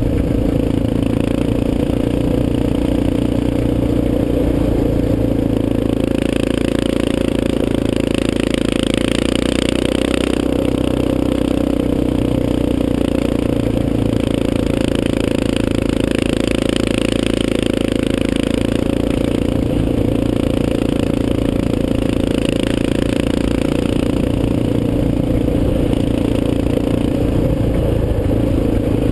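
Yamaha Raptor 250 quad's single-cylinder four-stroke engine running steadily under way, with the tyres crunching over a dirt road, a hiss that swells every few seconds.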